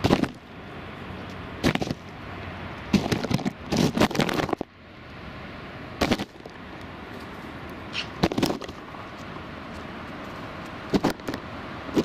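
Irregular knocks and scuffing close to the microphone from a common buzzard moving about and feeding right at a ground-level camera, heaviest in a cluster about three to four seconds in, over a steady background hiss.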